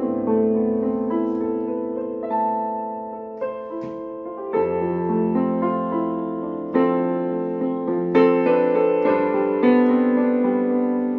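Yamaha PSR-series portable keyboard played with a piano voice: slow, held chords, a new chord struck every second or two.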